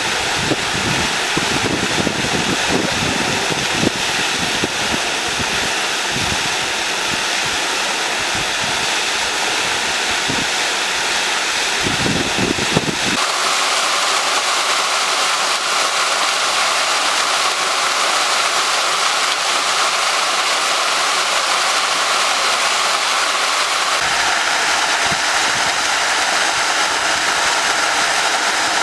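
Fountain water jets spraying and splashing down into the basin: a steady rush of falling water. An uneven low rumble in the first part stops abruptly about halfway through, leaving a smoother hiss.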